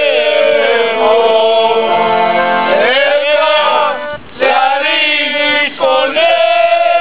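Several voices, mostly men, singing a folk song in unison to an accordion accompaniment, with a short break between phrases about four seconds in.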